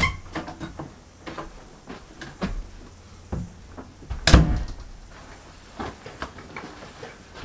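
A person moving about a small room: scattered light knocks and steps, with one louder thump a little after four seconds in, as a backpack is handled.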